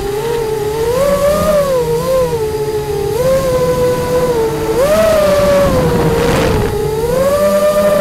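FPV quadcopter's motors and propellers whining, heard from the drone itself. The pitch swings up and down with the throttle, rising sharply about five seconds in and again near the end, with a brief hiss just after six seconds.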